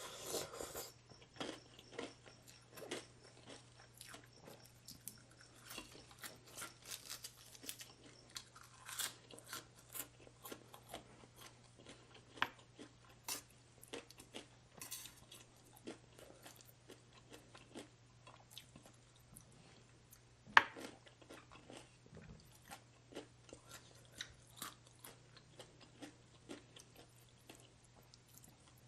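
A person chewing and crunching crisp food close to the microphone, many small crackly crunches, with one sharp click about twenty seconds in.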